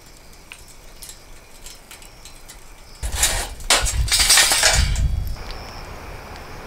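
Lump charcoal burning in a metal chimney starter, giving faint scattered crackles and glassy tinkles. About three seconds in, a louder rushing noise with a low rumble comes in for about two seconds.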